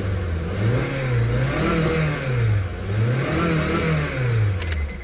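Honda CR-V engine running and being revved up and let back down about twice, now starting and running after its hard-starting fault, a cracked fuel-pump O-ring, was patched. A few sharp clicks sound near the end as the revs die away.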